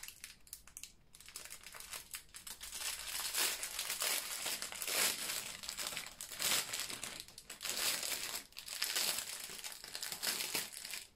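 Clear plastic packaging crinkling and rustling in irregular bursts as hands open and unroll a plastic sleeve of bagged diamond-painting drills.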